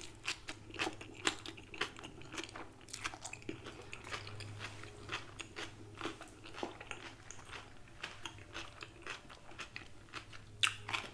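Close-miked mouth sounds of someone eating coleslaw: irregular crisp crunching and wet chewing clicks.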